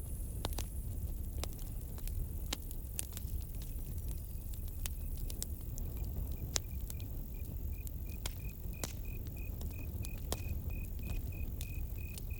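Campfire crackling, with scattered sharp pops over a low steady rumble of the burning fire. About halfway in, a cricket starts chirping in an even pulse, about two chirps a second.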